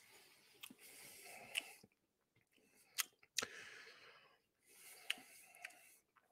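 Faint mouth sounds of a person tasting bourbon: sharp wet clicks and smacks as the whiskey is worked around the mouth, with three long hissing breaths between them.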